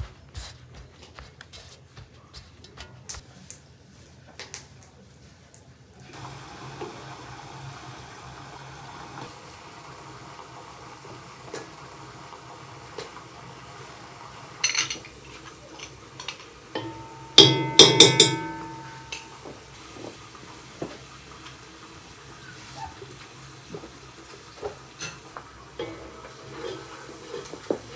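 Kitchen cooking sounds: light knocks of food and utensils at first, then meat patties and tomatoes frying in oil with a steady faint sizzle. About two-thirds of the way through comes a loud clatter of metal cookware that rings briefly.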